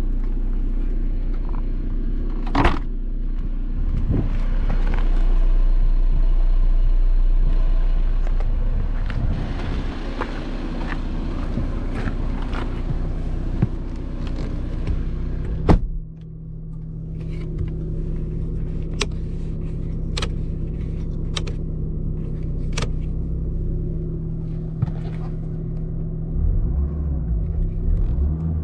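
Audi A6 C6's 2.0 TDI four-cylinder diesel engine idling steadily. A sharp knock comes about two seconds in, and a louder one about sixteen seconds in, after which the sound is duller and a few light clicks follow.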